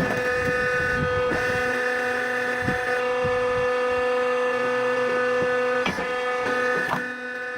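Compact hydraulic wood splitter and chipper running at a steady speed, giving off a constant high whine, with a few short knocks of wood being handled.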